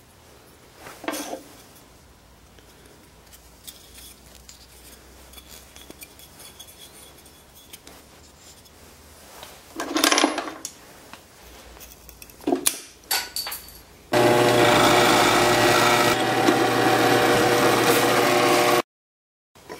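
Wooden parts handled with a few short knocks and scrapes, then a power tool runs steadily for about four seconds and cuts off suddenly.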